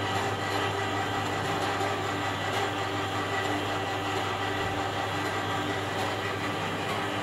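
Electrically driven profile pipe bender (Tsepon Master on a direct-drive frame) running steadily, its motor and rollers drawing a square steel tube through and rolling it into a ring. A steady mechanical hum with several steady tones over it.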